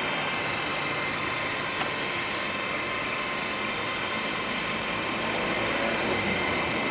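Milling machine running with a steady mechanical whir of gearing and drive, its table traversing under power feed.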